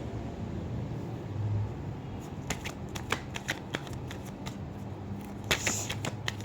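Tarot cards being shuffled by hand: quick, crisp flicks of the deck that start about two and a half seconds in and bunch into a fast flurry near the end.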